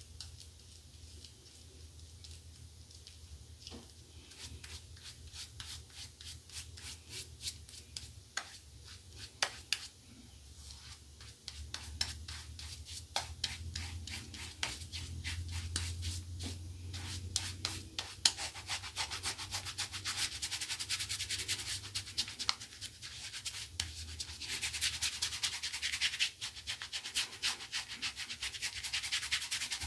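Fingers rubbing wet shaving-soap lather into two days' stubble, a steady crackling, squishy rubbing that thickens and grows louder about two thirds of the way through.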